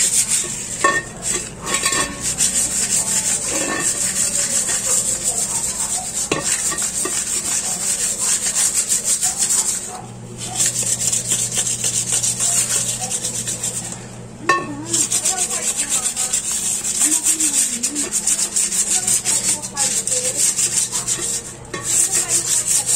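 Sandpaper, 240 grit, rubbed by hand over a rusty metal motorcycle rim in quick back-and-forth strokes, sanding the surface before it is primed. The rasping breaks off briefly three times, with a single click about halfway through.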